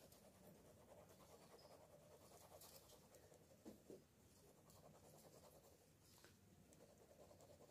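Faint, rhythmic scratching of a ballpoint pen shading in on a sheet of paper, with two small taps about halfway through.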